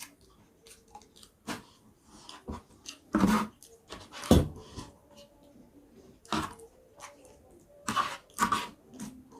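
A person chewing and crunching food close to the microphone, in irregular crackly bites and chews, loudest about a third of the way in and again near the end.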